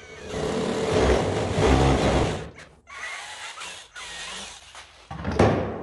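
Cordless drill boring a hole through the centre of a PVC end cap, running hard for about two and a half seconds, then quieter, on and off. A sharp knock comes near the end.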